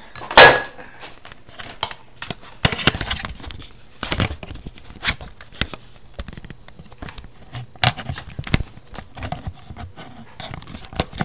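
Handling noise close to the microphone: irregular clicks, knocks and rustles as a phone's USB cable is reached for and plugged in, with one loud sharp knock about half a second in.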